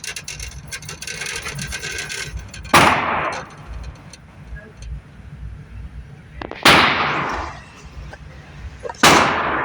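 Three gunshots from a Walther PPQ 9mm pistol, the first a few seconds in, the next about four seconds later and the last about two seconds after that, each ringing out briefly. Before the first shot there is a patter of small clicks and rustling.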